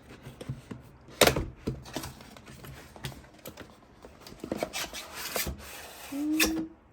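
Irregular clicks and knocks of hard objects being handled, with one sharp knock about a second in and a quicker run of them in the second half.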